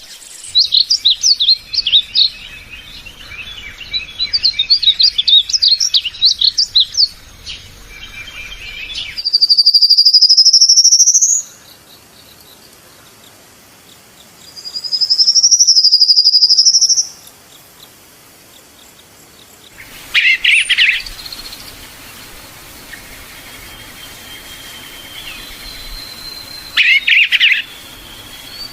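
Birds singing: fast runs of high chirps, then two long, loud whistled notes that slide up in pitch. Later come two short bursts of song over a faint background hiss.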